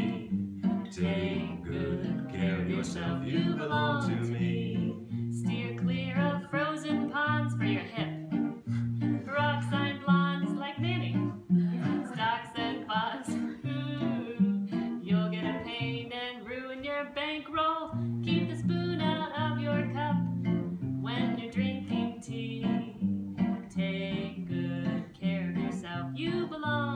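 Acoustic guitar strumming steady chords while a man and a woman sing together, their voices wavering in vibrato.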